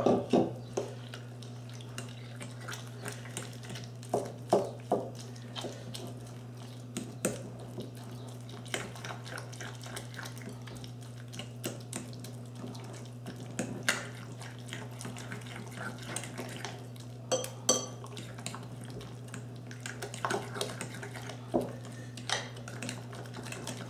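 A metal utensil clinking and scraping against a glass mixing bowl in scattered, irregular taps as a wet flour-and-salt-cod batter is stirred, over a steady low hum.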